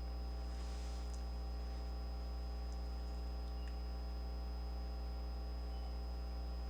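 Steady electrical mains hum with a stack of overtones and a thin, faint high whine above it. A few faint ticks sound now and then.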